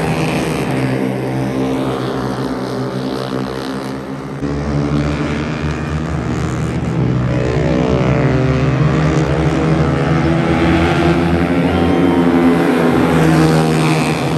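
Racing motorcycle engines running hard at high revs in a steady drone, their pitch shifting a little as they accelerate and pass.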